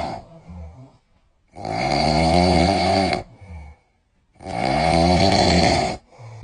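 Loud snoring: two long, rasping snores, each lasting about a second and a half and roughly three seconds apart, with the tail of a previous snore just at the start.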